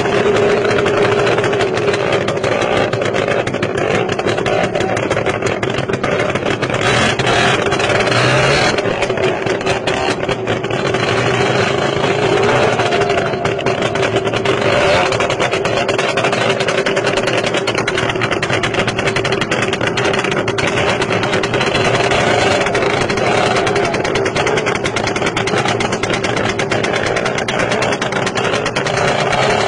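Several motorcycle and car engines running and revving together, one continuous loud drone with no break.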